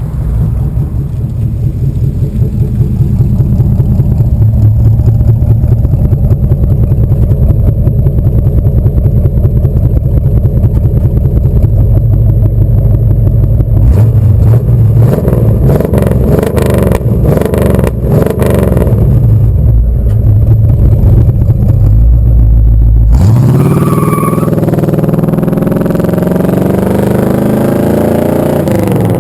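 1964 Pontiac Catalina's V8 running with a deep, pulsing exhaust note, blipped a few times about halfway through. About 23 seconds in the deep rumble drops away and the engine note rises in pitch as the car accelerates.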